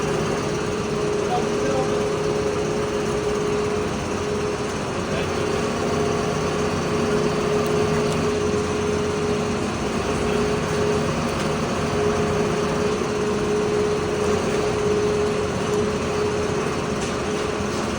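A small engine running steadily, with a constant hum and no change in speed.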